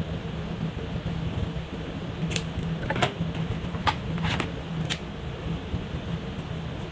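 Coloring with markers: a steady low hum and hiss, broken by five short sharp clicks of the markers spaced irregularly through the middle.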